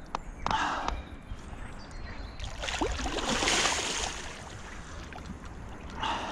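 Hooked wels catfish splashing and thrashing at the water's surface right beside the kayak, loudest about three to four seconds in.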